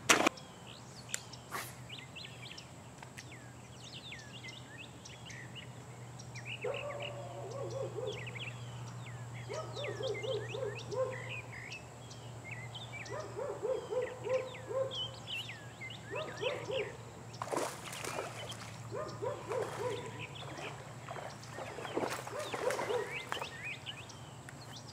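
Birds chirping all around, joined from about six seconds in by repeated bouts of rapid, low, pulsed calls from an unseen animal. A steady low hum runs underneath.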